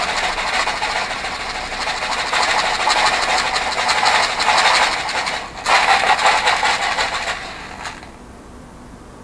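Loose bicycle-pedal ball bearings rattling inside a lidded plastic cup of degreaser as it is shaken to wash off old grease. Two bouts of fast rattling, the first breaking off about five and a half seconds in and the second stopping about eight seconds in.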